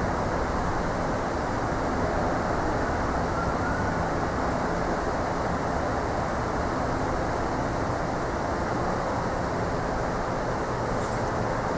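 Steady, unbroken running noise of the Promaco RBM 2-40 angle roll's electric motor and gear drive, a constant hum and rush with no starts or stops.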